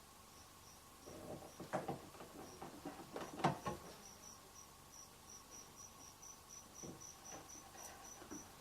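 A cricket chirping, a short high pulse repeated about three times a second, with a few faint knocks and scrapes in the first half.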